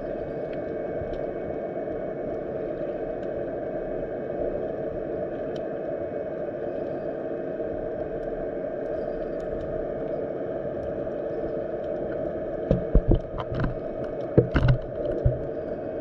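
Muffled underwater ambience of a shallow sea: a steady rushing noise of water, with a run of low thuds and knocks in the last few seconds.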